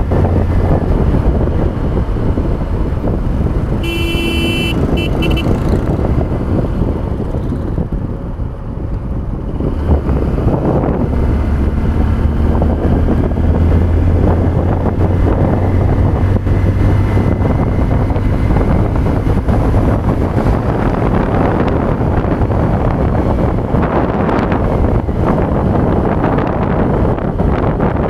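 Hero Hunk motorcycle's single-cylinder engine running at a steady cruise under wind rush on the microphone. A vehicle horn toots briefly in a few short blasts about four seconds in.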